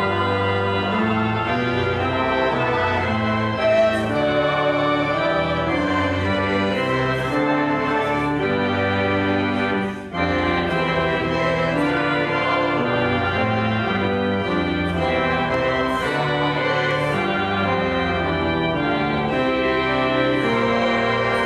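Church organ playing a slow prelude of sustained chords that change every second or so, with a brief break about ten seconds in. This is the church's newly rebuilt organ.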